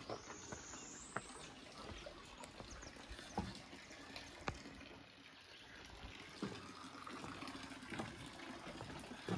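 Faint steady trickle of running water, with a few soft clicks and a thin high rising whistle in the first second or so.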